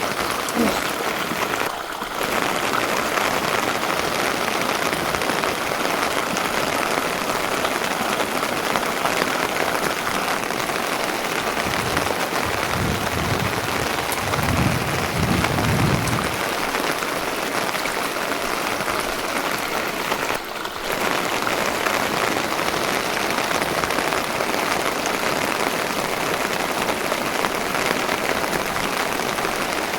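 Steady heavy rain falling, an even hiss throughout, with a low rumble about twelve to sixteen seconds in.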